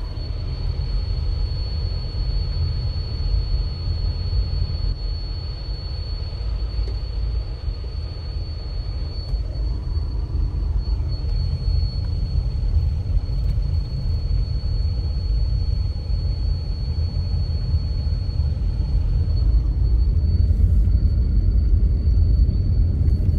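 Car interior road noise while driving: a steady low rumble of engine and tyres, with a thin steady high-pitched whine throughout. The rumble grows a little louder near the end.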